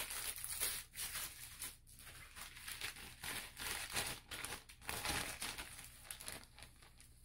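Clear plastic packaging crinkling and rustling in irregular bursts as a garden flag is pulled out of its sleeve and unfolded, dying down near the end.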